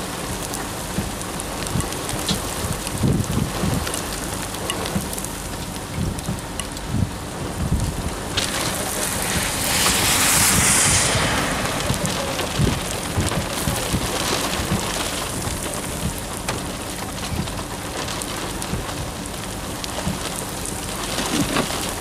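Rain falling steadily in a thunderstorm, with scattered low rumbles and thumps. About eight seconds in, a louder rushing hiss swells, peaks, then fades over a few seconds.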